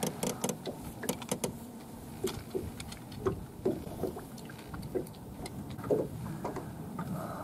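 Irregular clicks and light knocks, thickest in the first second and a half, from fishing rods and reels being handled aboard a small fishing boat.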